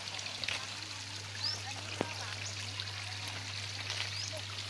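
Water running and trickling in a stone-lined channel, a steady hiss, with a few short high chirps and one sharp click about two seconds in.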